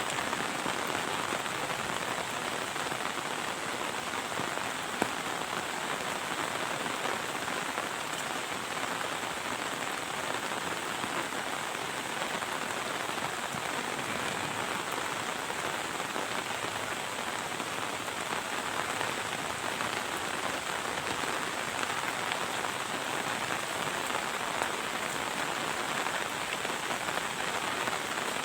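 Heavy rain falling steadily, an even hiss of drops on surfaces, with one sharp tap about five seconds in.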